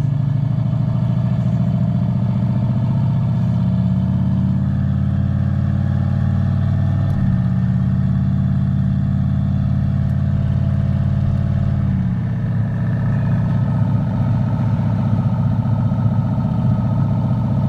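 Turbocharged pickup truck engine running at a steady speed while driving, heard from inside the cab. About twelve seconds in the engine note changes and turns rougher and more uneven.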